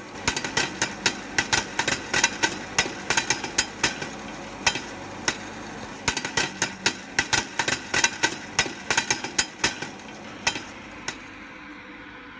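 Popcorn kernels popping in a Roastilino fluid-bed coffee roaster: sharp pops several times a second over the steady rush of the roaster's hot-air blower. The popping thins out to a few last pops in the final couple of seconds.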